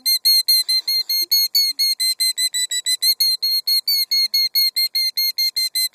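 Killdeer giving a rapid, unbroken string of shrill alarm notes, about six a second: a parent defending its nest and eggs.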